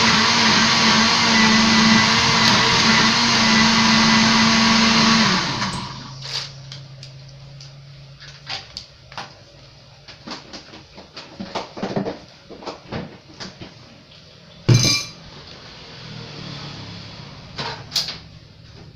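Electric blender running steadily while mixing the es doger coconut-milk drink, switched off abruptly about five seconds in. After that come scattered light clicks and knocks, with two sharper knocks near the end.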